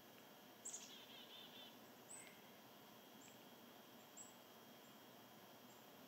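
Faint, short, high-pitched bird calls, four of them a second or so apart, the first followed by a brief buzzy run of lower notes, over a steady low hiss.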